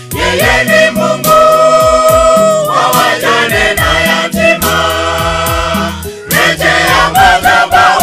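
Church choir of women and men singing a gospel song in parts through microphones and a PA, holding long notes over a steady beat.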